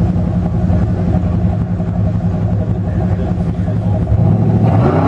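Rock-crawling buggy's engine running steadily at low revs, then revving up about four seconds in as the throttle is opened.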